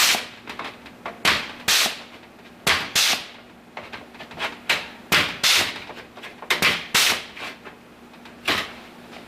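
Air-powered Onyx punch/flange tool punching holes in sheet metal: a series of about ten sharp snaps, several in quick pairs about a third of a second apart, with short pauses between punches.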